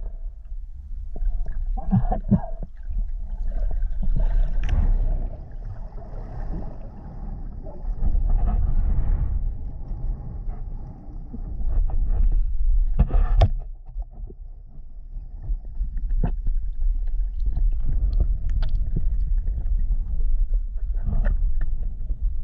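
Underwater sound through an action camera's housing: a steady low rumble of moving water with scattered clicks and knocks, the loudest about two and thirteen seconds in.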